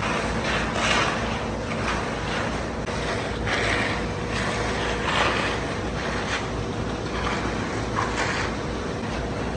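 Heavy concrete-pour machinery running steadily with a held humming tone, with irregular rushing, scraping bursts over it about once a second.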